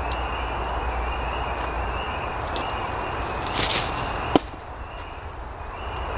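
A baseball pitch: a short scuff of the pitcher's stride on the dirt, then about half a second later a single sharp pop as the pitched ball hits home at the far end of the cage.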